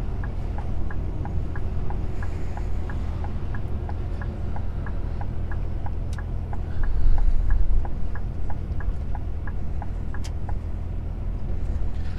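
Truck cab interior: steady engine and road rumble, swelling briefly about seven seconds in. Over it, the turn-signal indicator ticks evenly, about two to three clicks a second.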